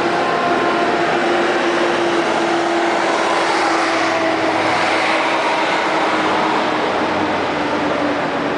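Steady city road traffic from a multi-lane street below, as buses and cars pass by.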